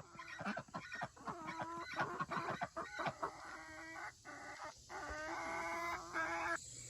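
Young chickens clucking and calling in a string of short notes, with two longer held calls in the second half.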